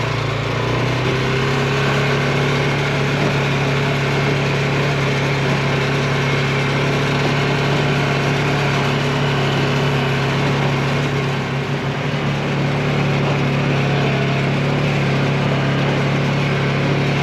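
Engine of a small farm vehicle running at a steady pitch as it is driven along a rough track, easing briefly about twelve seconds in.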